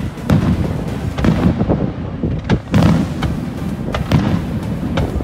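Aerial fireworks shells bursting in quick succession, a string of bangs and crackles over a continuous low rumble, with the loudest bang a little past halfway.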